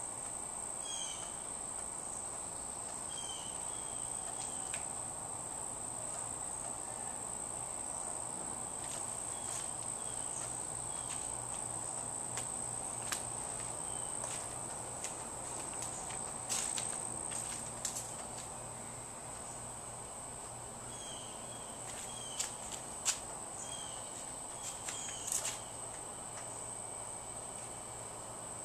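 Insects droning steadily at a high pitch, with a few short faint chirps and scattered clicks and knocks around the middle and near the end.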